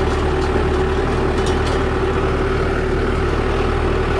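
New Holland Boomer compact tractor's diesel engine running steadily while the tractor is driven, with a constant droning tone over the engine sound.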